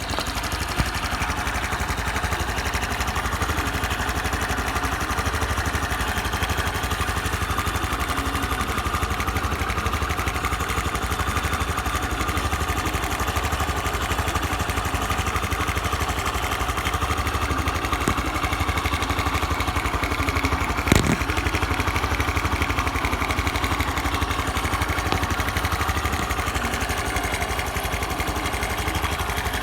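Honda Super Cub 110 PRO's 110 cc air-cooled four-stroke single-cylinder engine idling steadily, running smoothly without abnormal noises. A single brief knock sounds about two-thirds of the way through.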